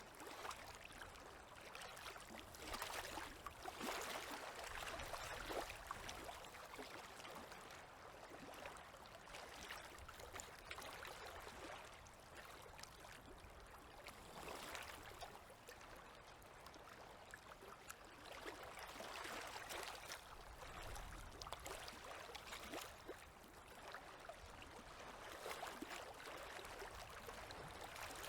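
Small waves lapping at a river's edge: a soft wash of water that swells and falls back every few seconds.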